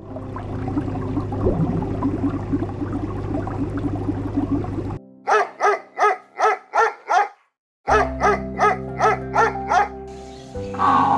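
Background music for about five seconds, then a dog barking in two quick runs of about eight short barks each, split by a moment of silence. The music comes back near the end.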